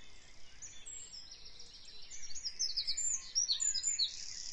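Dawn chorus of several songbirds singing at once: high chirps and quick repeated notes overlapping, getting busier and louder from about halfway through.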